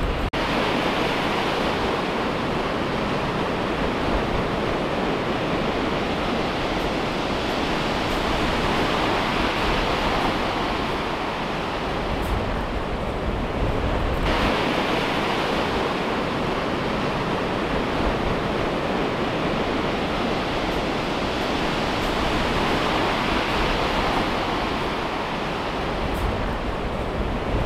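Surf breaking on a shingle beach: a continuous rushing wash that swells and eases with the waves, with a sudden change in its tone about halfway through.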